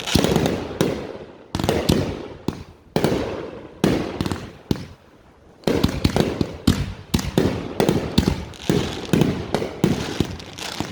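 Fireworks going off: a rapid string of sharp bangs and pops with crackle. There is a short lull about halfway through, then a denser run of reports.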